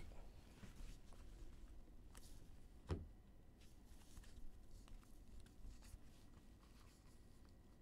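Near silence with faint ticks and slides of a stack of trading cards being handled, and one sharper tap about three seconds in.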